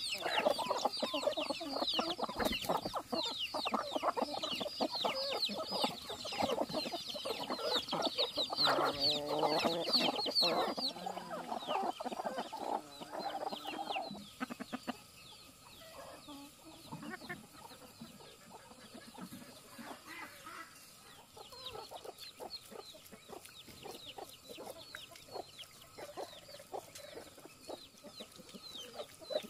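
A flock of chickens feeding: hens clucking, with a dense chorus of high chick peeps over it. After about fourteen seconds it drops to fainter, scattered clucking.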